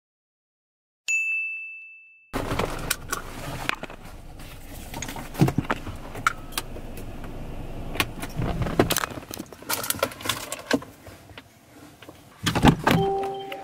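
A single bright ding about a second in, ringing out over about a second. Then rattles, clicks and knocks from handling inside a car, over a low rumble, with a brief pitched tone near the end.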